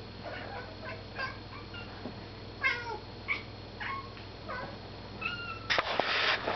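Domestic cat giving a string of short chirps and meows, several falling in pitch, the excited calls a cat makes at a moth it is watching. A short rough burst of noise comes near the end.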